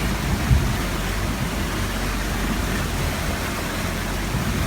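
Steady rushing noise of river water around a Jeep fording a river, with a low rumble underneath and a brief knock about half a second in.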